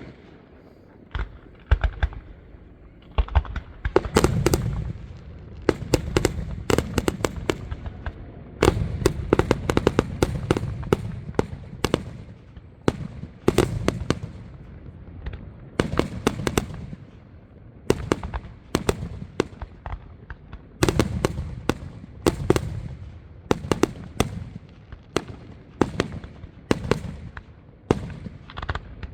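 Aerial fireworks display: shells launching and bursting in a steady run of booms, with crackling and rapid popping between them.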